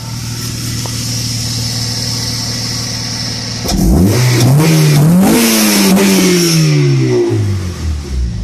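A 2005 Acura RSX Type S's 2.0-litre i-VTEC four-cylinder breathing through a DC Sports race header and Apexi axle-back exhaust, idling steadily. A little over three seconds in it is revved once: the pitch climbs for about a second and a half, then falls back to idle over about two seconds.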